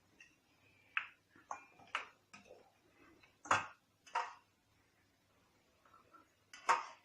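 Scattered light clicks and taps of a spoon and utensils against a bowl while tablespoons of oil are added to flour, about seven in all, the loudest about three and a half seconds in.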